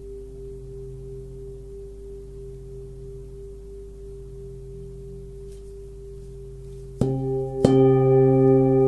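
A 25.3 cm forged Tibetan singing bowl, whose low note is C at about 134 Hz, ringing on with a steady low hum and a few overtones. About seven seconds in it is struck twice in quick succession, and it rings out much louder with a richer spread of overtones.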